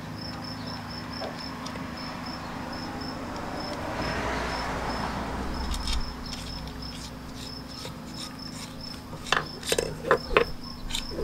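A cricket chirping steadily, about three short high chirps a second, with a pause in the middle. Near the end come a few sharp knocks and clicks as the antenna mast is handled.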